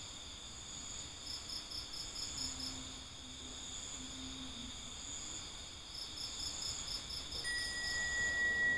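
A chorus of night insects: a steady high-pitched trilling, with two quick runs of chirps at about eight a second. Near the end a steady high tone comes in as the music begins.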